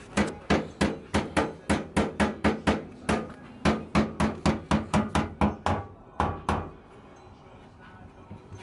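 Rapid hammer blows on a car's sheet-metal fender lip, about four strikes a second, stopping about six and a half seconds in. The lip is being bent up so the wheel won't hit it.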